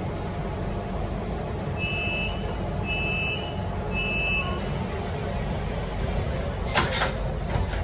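A subway train's door-closing warning: three short high beeps about a second apart over a steady low hum. Near the end come sharp knocks as the car doors and platform screen doors shut.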